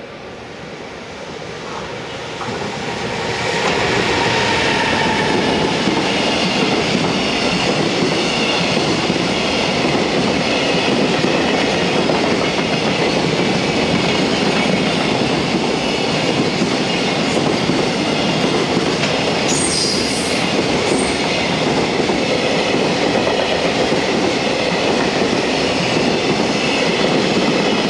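JR Freight EF210 electric locomotive arriving and passing, then its container wagons rolling by on the rails; the rumble grows over the first few seconds and then holds steady and loud. A brief high squeal comes about twenty seconds in.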